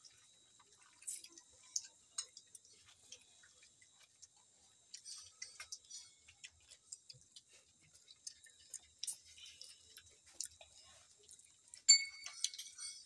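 Quiet mouth sounds of children eating mashed elephant apple (chalta bharta) with their fingers from banana leaves: small wet clicks and lip smacks scattered throughout. A louder sharp smack with a brief squeak comes near the end, over a faint steady high whine.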